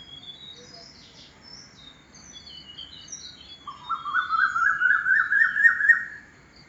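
Several garden birds chirping, with short high calls throughout. About halfway through, a louder bird sings a rapid run of repeated notes that climbs slowly in pitch for about two and a half seconds.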